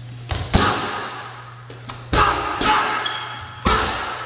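Boxing gloves hitting a coach's training pads: about five sharp smacks, two quick pairs and then a single, each ringing briefly in a large room.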